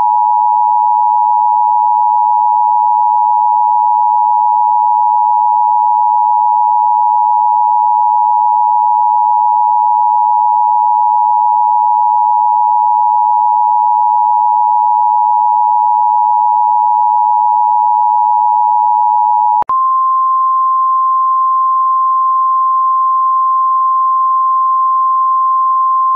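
Emergency Alert System attention signal: two steady pure tones sounding together as a loud, harsh drone. After about twenty seconds it cuts out for an instant and switches to a single, slightly higher steady tone.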